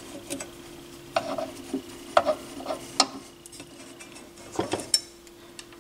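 Small metallic clicks and taps from handling the parts of a Harman Kardon ST 7 linear tracking turntable during disassembly, about half a dozen spread out, over a faint steady hum.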